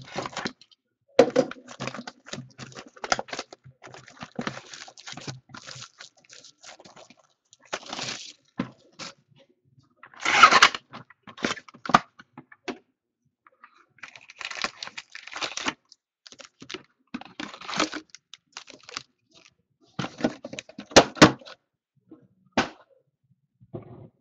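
Shrink wrap being slit and peeled off a Panini Playoff football card box, then the box opened and its foil packs pulled out and set down: a run of crinkling, rustling and clicks. There is a louder rip about ten seconds in and a few sharp knocks about twenty-one seconds in.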